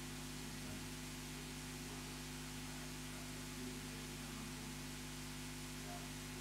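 Quiet, steady electrical hum with an even hiss, unchanging throughout, with no other sound standing out.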